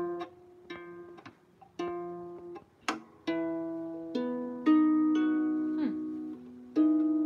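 Out-of-tune harp plucked slowly, one note at a time, each string left to ring and die away. The loudest note comes a little past halfway and overlaps a lower note.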